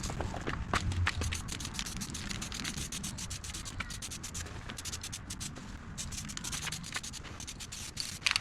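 Hand sanding: a quick, uneven run of short scratchy rubbing strokes.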